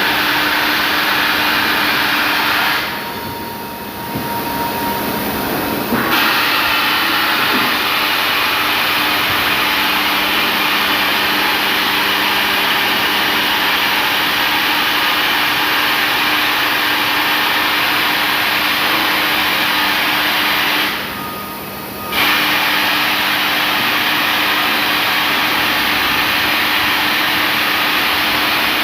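Thermal metal-spray gun running with a loud, steady hiss and a low hum beneath. The hiss drops away twice: for about three seconds starting about three seconds in, and briefly about 21 seconds in.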